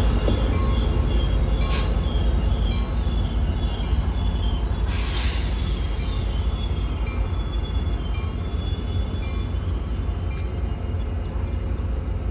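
Trinity Railway Express commuter train's diesel locomotive pulling away: a steady low rumble that slowly fades. A faint high ding repeats at an even pace, and two short hisses come about two and five seconds in.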